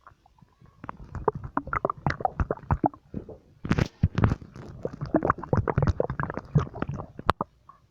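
Human stomach gurgling and rumbling in quick runs of short bubbling pops, starting about a second in and going on for several seconds. A single sharp click sounds near the end.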